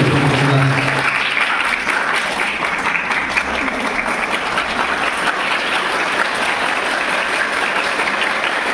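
Audience applauding steadily, a voice fading out in the first second or so.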